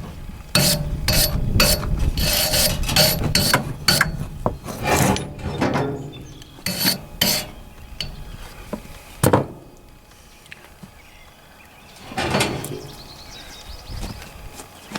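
Wire brush scrubbing the metal threads of a tractor hydraulic ram fitting clean, in quick back-and-forth rasping strokes that stop about halfway through. A couple of single clunks follow.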